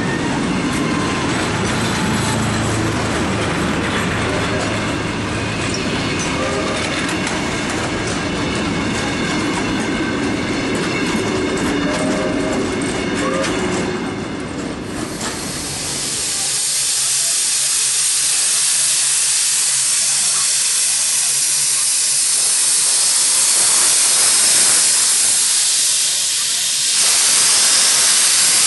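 Passenger carriages of a steam-hauled train rolling past close by, a steady rumble with wheel clicks. About halfway through, the rumble gives way to a loud, steady hiss of escaping steam from a Queensland BB18¼ class steam locomotive.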